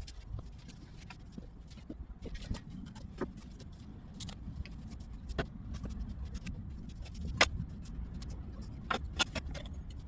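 Steady low rumble with a few sharp knocks and clicks scattered through it, the loudest about seven seconds in.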